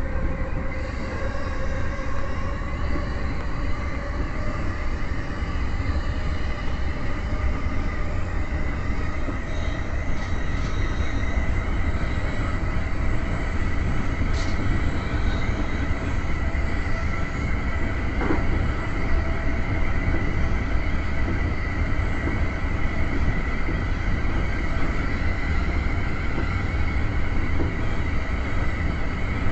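E231-series electric commuter train running at speed, heard from inside the front car: a steady rumble of wheels on the rails with the steady whine of the traction motors over it.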